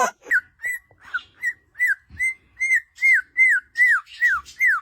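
A bird chirping in a steady series, about two and a half short notes a second, each one rising and then sliding down in pitch.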